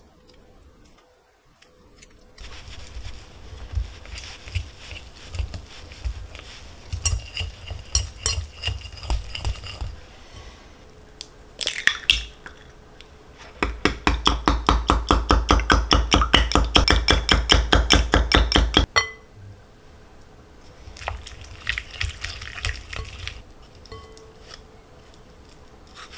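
A whisk and spatula stir softened butter in a glass bowl with rhythmic scraping strokes, and there is a clink near the middle. An egg is then beaten hard in a glass mug with a thin metal utensil, tapping the glass in a fast even rhythm of about eight strokes a second. This is the loudest part, and it stops sharply before slower mixing in the bowl resumes.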